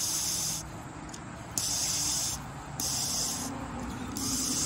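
Air hissing through a lawn mower carburetor's fuel inlet and needle-and-seat valve as someone blows through it by mouth in four short puffs. The air gets through, a sign that the needle and seat are working.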